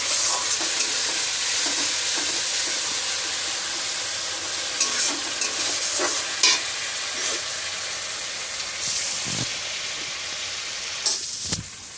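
Ground spice paste (ginger, cumin, mustard and green chilli) sizzling in hot oil with fried potatoes and onions in a pan, stirred with a spatula that scrapes the pan now and then. The masala is being fried down (koshano). The sizzle grows gradually quieter.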